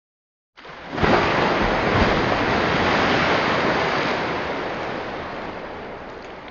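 Rushing sound effect that resembles breaking surf. It begins after about half a second of silence, swells within half a second, then slowly fades away.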